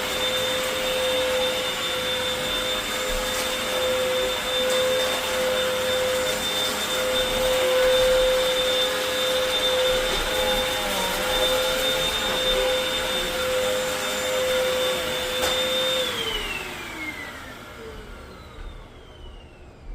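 Hoover WindTunnel T-Series Rewind upright vacuum cleaner running steadily on the floor with a high motor whine over a rush of airflow. About four-fifths of the way through it is switched off, and the whine falls in pitch and fades as the motor spins down.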